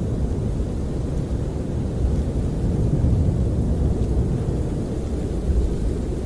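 Snowstorm wind buffeting a camper, heard from inside as a steady deep rumble that swells a little, strongest around three seconds in.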